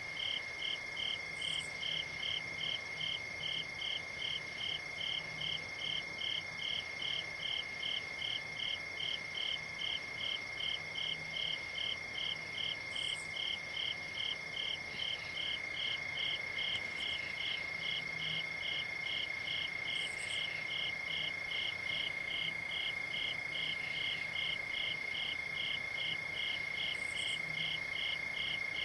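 Night chorus of crickets: one chirping steadily about twice a second, over a continuous high trill from others.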